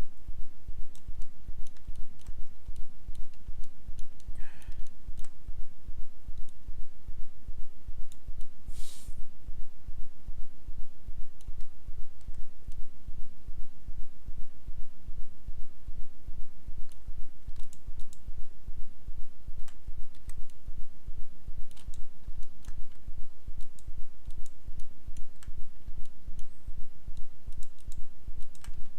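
A steady low electrical hum that pulses evenly, with a few scattered computer mouse clicks.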